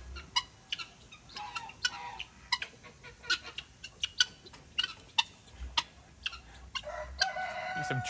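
Farmyard poultry calling: a scatter of short, sharp guinea fowl calls and clucks as the birds squabble, with a rooster's held crow starting near the end.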